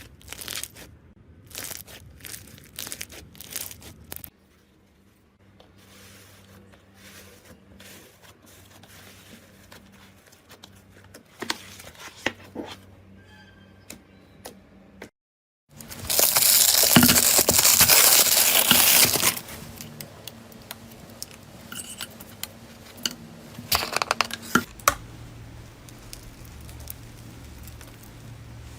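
Slime being squeezed and poked by hand in several short clips: soft clicking and crackling, with a few seconds of loud, dense crunchy crackling a little past the middle.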